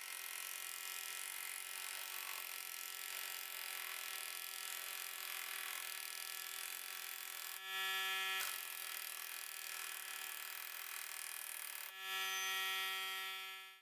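Pneumatic air wrench running, winding the castle nut down an MGB half-shaft to draw the shaft and its hub bearing out of the axle tube. A steady machine hum throughout, with two louder spells, one about eight seconds in and one near the end.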